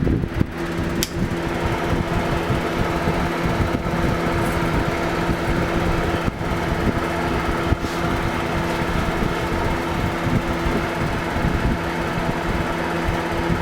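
Electric motor-driven shop machine running steadily with a low, even hum, with a few sharp clicks.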